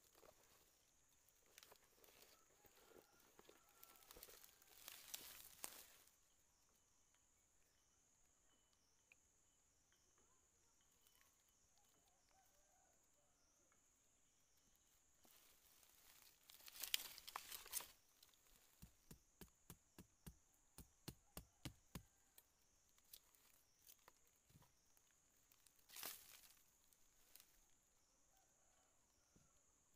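Faint rustling of dry bamboo leaf litter as hands work at the ground. About two-thirds of the way through comes a run of quick light taps, about four a second, as a machete knocks a wooden stake into the soil.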